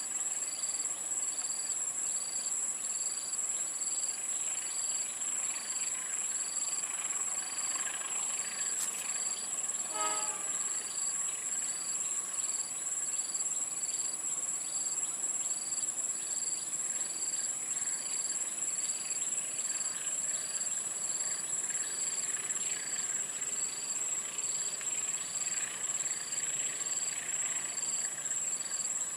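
Steady high-pitched insect drone with a chirp repeating a little more than once a second, over the faint sound of a diesel locomotive and its train climbing the grade out of the station. A brief horn toot comes about ten seconds in.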